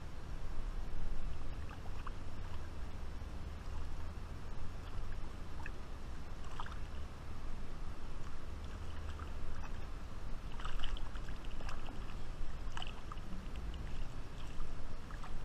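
Shallow river water lapping and swirling around an angler's legs, with small splashes from a hooked fish being brought in by hand, most of them in the second half, over a steady low rumble.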